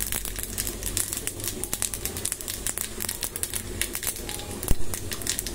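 Mustard seeds crackling and popping in hot oil in a small iron tempering ladle on a low gas flame: a dense, irregular run of sharp little pops with one louder pop late on, the spluttering stage of a rasam tempering.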